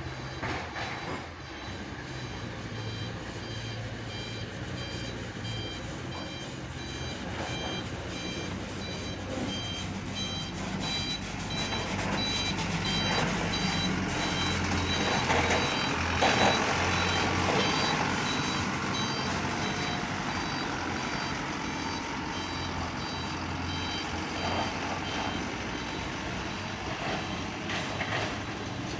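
Excavator's diesel engine running, with a warning alarm beeping in a steady repeating pattern over it; the beeping stops a few seconds before the end.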